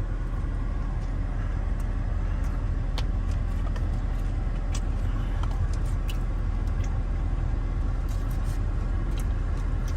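Steady low rumble inside a car cabin with the engine running, with a few faint clicks over it.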